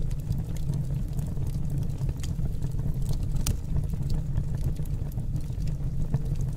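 Pellet burner flame: a steady low roar with scattered sharp crackles.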